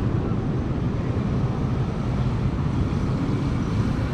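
Steady low rumble of road traffic, mixed with wind on the microphone.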